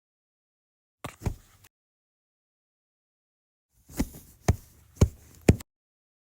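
Knocking sound effect: two sharp knocks about a second in, then four more about half a second apart near the end, with dead silence between.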